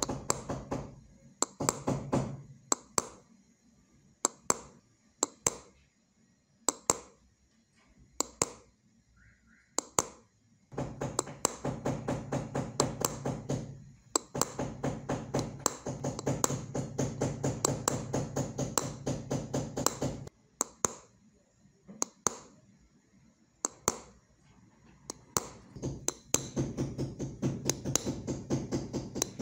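Small hammer tapping a pointed steel engraving tool into a metal sheet, hand-engraving a design. The taps come in runs of about four or five a second, with scattered single taps and short pauses between the runs.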